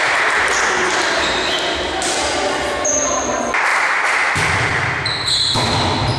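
Indoor volleyball match heard in a reverberant gym: players' voices and shouts, with a ball being struck. The sound changes abruptly partway through, where one clip cuts to the next.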